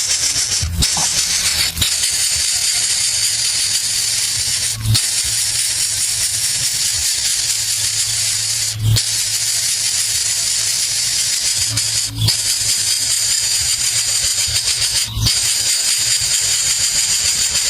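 Steady, high-pitched hiss with a low hum underneath, briefly broken about six times by short dips.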